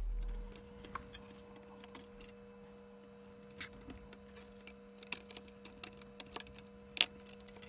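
Faint clicks and taps of a CD-ROM drive's metal casing and circuit board being handled as it is opened up, with a sharper click about seven seconds in. A steady faint hum runs underneath.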